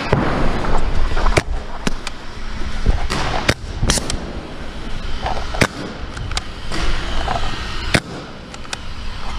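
Paintball markers firing in a game: about a dozen sharp single pops at irregular intervals over a continuous noisy background.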